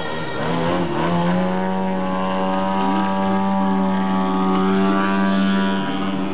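Propeller engine of an aerobatic stunt plane, rising in pitch about a second in and then held steady at high power.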